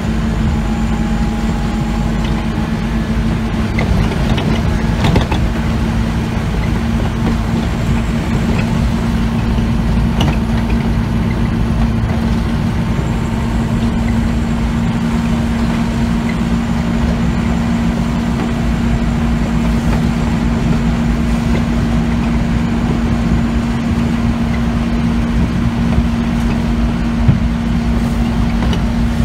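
Scania OmniCity bus under way, heard from inside the passenger saloon: its diesel engine runs with a steady, unchanging hum over low road rumble. A few sharp knocks and rattles come about four to five seconds in.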